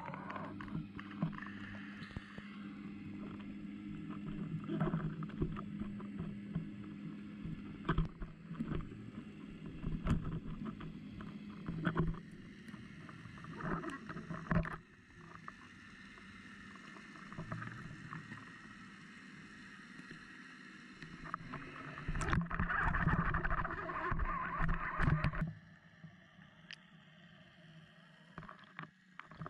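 Muffled underwater sound through a submerged camera: a steady low hum under a wash of water noise, with scattered knocks and clicks. About three-quarters through it swells into a louder rushing stretch for a few seconds, then drops away quieter.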